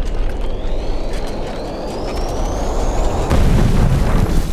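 A thin whine rising in pitch over about three seconds over a low rumble, then a nitroglycerin explosion about three seconds in: a sudden blast followed by a deep, loud rumbling boom.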